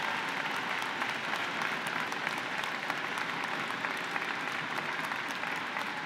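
Large crowd applauding steadily, a dense even patter of many hands clapping.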